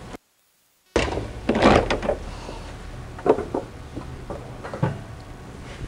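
Cub Cadet CC999ES walk-behind mower being tipped over onto its side on a work table: a cluster of clunks and scraping just after a second in, the loudest part, then a few separate sharper knocks as it settles.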